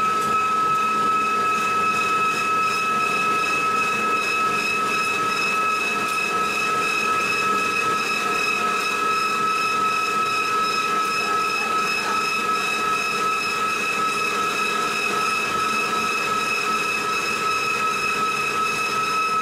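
Steady industrial machinery noise: a constant high-pitched whine over an even hiss and rumble, with no knocks or changes.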